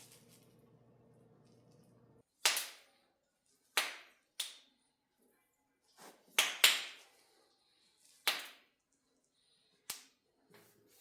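A series of about eight sharp clicks or knocks at irregular intervals, some in quick pairs, each with a short ringing tail. A faint steady hum stops about two seconds in.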